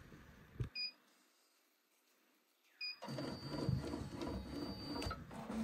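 Ricoma 1501 multi-needle embroidery machine: a short beep from its control panel about a second in and another near the middle. Its drive motors then run for about two seconds with a steady high whine, tracing the design outline on the hooped beanie, and stop with a click.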